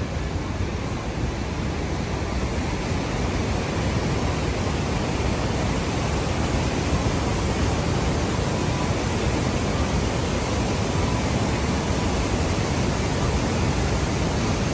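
A steady, loud rushing noise with no tone or rhythm in it, growing slightly louder over the first few seconds.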